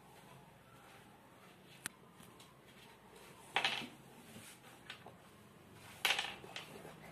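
Toddler's hands handling plastic toy pieces and a plastic bottle on a play board: a sharp click about two seconds in, then two short louder clatters, with a few lighter clicks between.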